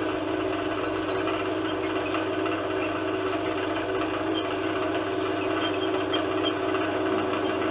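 Wood lathe running steadily while a drill bit is fed by hand into the end of the spinning wooden pipe blank, boring the draught hole. A faint high squeal sounds briefly around the middle.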